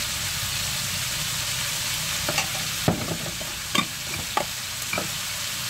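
Oil sizzling steadily in a wok as pieces of pork offal and sliced ginger fry, with about five short sharp clicks scattered between two and five seconds in.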